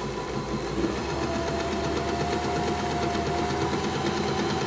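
Janome My Style 20 domestic sewing machine running steadily at constant speed, sewing a straight stitch on the stretch-stitch setting, where each stitch is made three times by going forward, back, forward.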